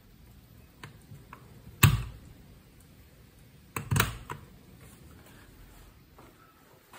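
Old push-button light switches being pressed, snapping mechanically: a loud click about two seconds in and a quick double click near four seconds, with a couple of faint clicks before.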